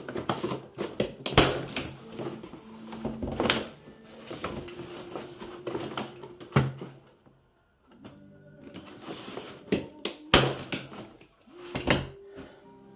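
A hand staple gun firing staples through thick plastic sheeting into a wooden trough, giving several sharp clacks, with the plastic liner rustling between shots.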